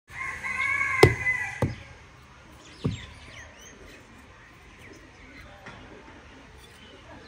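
Fired clay bricks being picked up and set down on dirt ground, giving three sharp knocks, the first the loudest. A loud bird call, wavering in pitch, sounds over the first second and a half, and faint bird chirps follow.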